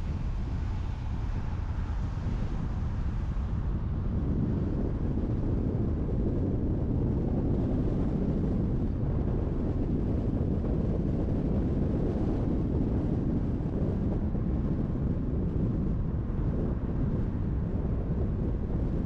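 Car driving at speed on a highway: a steady low rumble of tyres on the road with wind noise. About four seconds in, the rumble grows heavier and the higher hiss fades.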